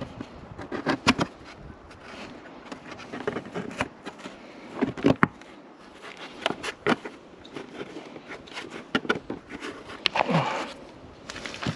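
Irregular clicks, knocks and light scrapes of a motorcycle flyscreen and its mounting brackets being handled and lined up.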